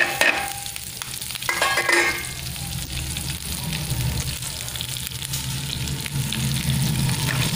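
Slit green chillies hitting hot oil in a frying pan and sizzling steadily, with a sharp burst as they go in and another brief louder burst about two seconds in.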